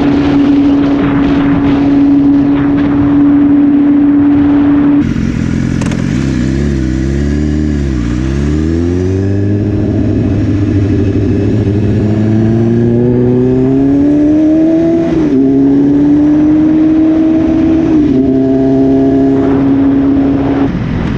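BMW S1000RR inline-four engine through an Austin Racing exhaust, heard on the move: it holds a steady high note with wind rush for about five seconds, then the revs fall away and climb again in a long rising pull. Two quick dips in pitch later on, typical of upshifts, are each followed by a steady cruising note.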